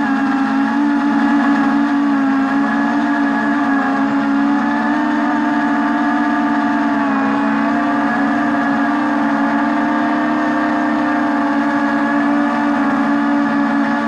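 Small quadcopter drone flying: its motors and propellers make a loud, steady buzzing hum, with fainter whining tones above it that waver slightly as the motor speeds shift.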